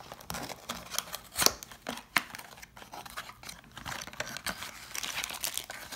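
A small paperboard box being opened by hand: the tape seal popped and the flap pulled back, with paper rustling and a run of sharp clicks, the loudest about one and a half and two seconds in.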